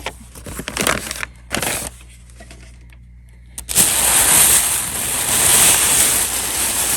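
A bag of mixed scrap jewelry being handled: a few short rustles, then from about four seconds in a steady, dense rustling and jangling of the bag and many small loose jewelry pieces.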